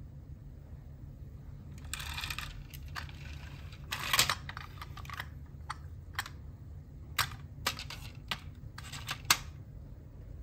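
Sharp clicks and knocks of a die-cast toy car-carrier truck being handled, its cab unhooked from the trailer and fitted back on. There is a short scrape about two seconds in and single clicks spaced through the rest.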